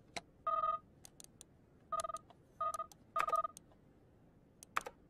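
Computer interface beeps: four short electronic bleeps, each two steady tones at once, with light clicks in between.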